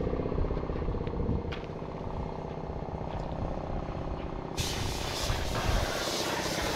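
An engine running steadily at a constant speed. A loud hiss joins in about four and a half seconds in.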